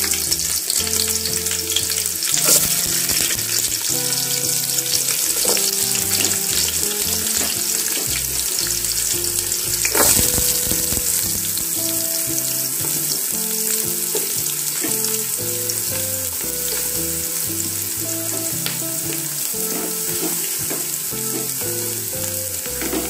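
Sliced onions sizzling steadily as they fry in hot oil and ghee with whole spices in an aluminium pot. A sharp knock comes about ten seconds in.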